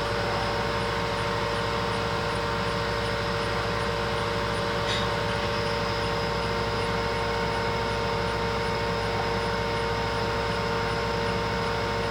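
Kellenberger 600U cylindrical grinder running at rest: a steady machine hum from its motors and hydraulic unit, with one short click about five seconds in.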